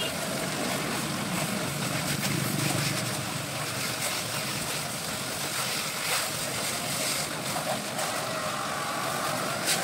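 High-pressure car-wash jet spraying water over a car's body, a steady hiss, with the washer pump's motor running beneath it.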